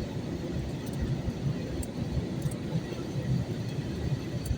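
Steady low roar of an airliner cabin in flight, the engine and airflow noise heard from inside, with a few faint light ticks.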